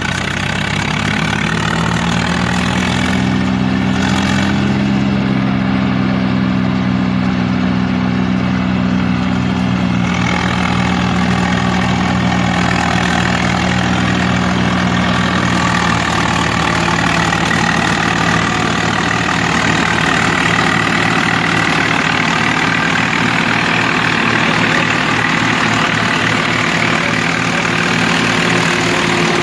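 Tractor engine revving up over the first few seconds, then running steadily at speed. A harsher noise joins about ten seconds in.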